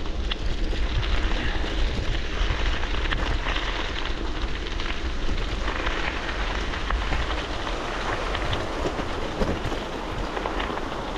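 Bicycle tyres crunching and crackling over loose gravel while riding, with wind rumbling on the microphone.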